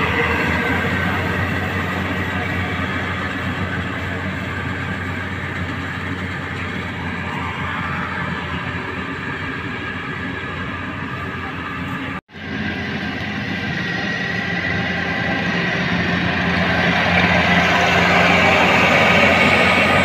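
Yanmar YH850 rice combine harvester running while harvesting, a loud steady mechanical drone. The sound cuts out for an instant about twelve seconds in, then comes back and swells louder near the end.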